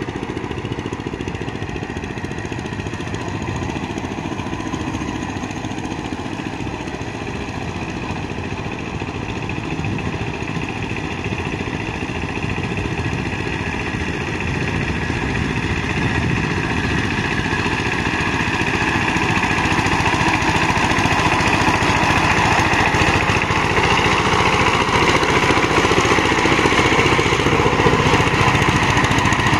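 Two-wheel power tiller's engine running steadily as its rotary tiller churns through a flooded, muddy paddy field, growing louder over the second half as it comes close.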